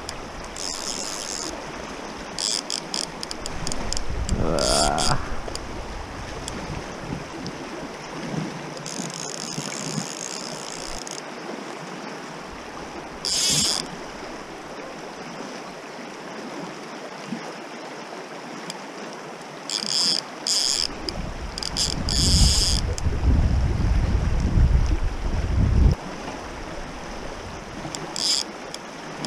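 Fast river running over stones, with short bursts of high clicking and whirring from the fly reel's ratchet as the hooked salmon takes line or is wound in; one rising whirr about four seconds in. Wind rumbles on the microphone for a few seconds in the second half.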